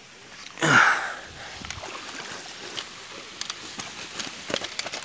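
A large pacu-type fish flaps and thrashes on a nylon landing-net bag, one sudden loud rustling slap about half a second in, followed by lighter rustles and clicks as it is handled by the tail.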